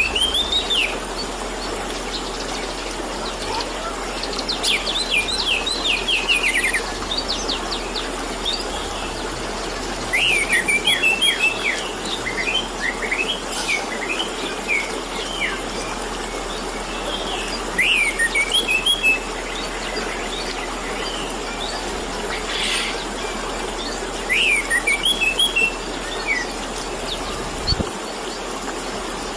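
Orange-headed thrush singing loudly, repeating bursts of rapid whistled notes every few seconds, over a steady trickle of running water.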